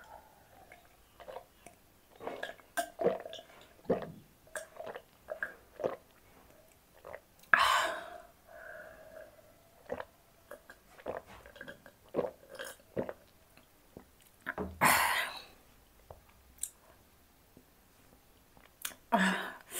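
Close-miked drinking: gulps and swallows from a glass mug with small wet mouth clicks, and two louder breathy sounds, about eight and fifteen seconds in.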